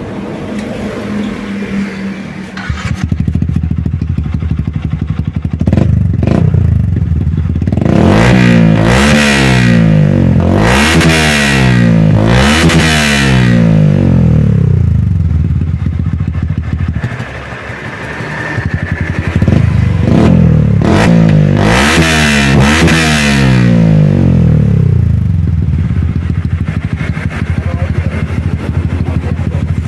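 Yamaha New Vixion's 150 cc single-cylinder four-stroke engine breathing through an Akrapovic aftermarket exhaust: idling, then blipped in a run of quick revs that fall back to idle, and revved again in a second run later on.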